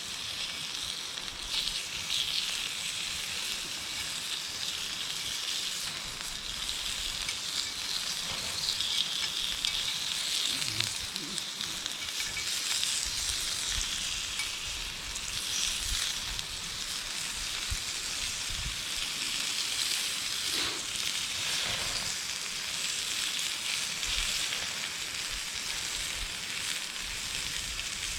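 Food sizzling in a hot pan, a steady crackling hiss, with a few faint knocks.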